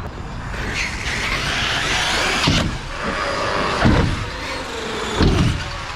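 Electric 1/8-scale RC cars running on concrete: brushless motor whine and tyre rush. Several heavy thuds follow, the loudest about four and five seconds in, as the cars land off jumps.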